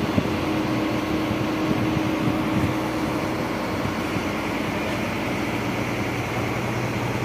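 Truck-mounted borewell drilling rig's engine running steadily while its hydraulic control levers are worked, with a higher hum that eases off about three seconds in.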